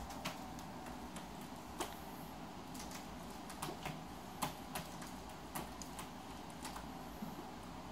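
A cat clawing a sisal-rope scratching post: irregular sharp clicks and scratches as its claws catch and pull on the rope, the loudest a little before the middle.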